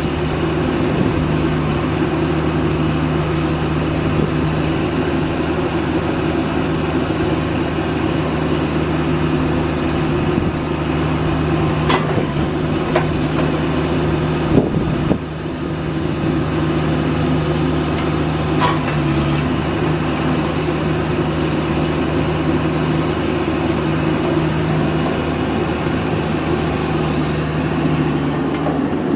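CAT excavator's diesel engine running at a steady speed, with a few short clicks or knocks around the middle.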